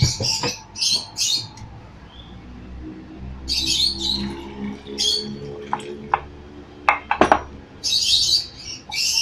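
A bird chirping and squawking in short high bursts, loudest at the start and again about eight seconds in. Between the bursts, water is poured from a glass jug into a glass jar of olives, and there are a few sharp glass clinks around seven seconds.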